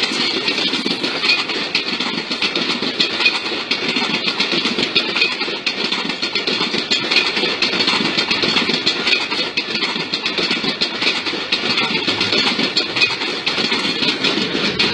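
Railway coaches rolling past close by: a steady rumble of wheels on the rails, with a dense run of small clicks.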